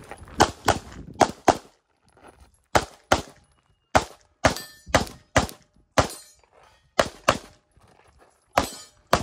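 Rapid pistol fire from a 9mm Walther PDP SF, about fifteen shots, mostly in pairs a third to half a second apart, with a pause of about a second early on between strings.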